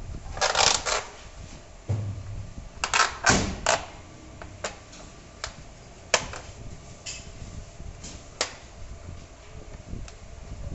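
Metal offset printing plate and press fittings rattling and clicking as the plate is pressed by hand onto the plate cylinder of a stopped offset press. There is a short rattle about half a second in and a quick run of sharp knocks around three seconds in, then single clicks every second or so.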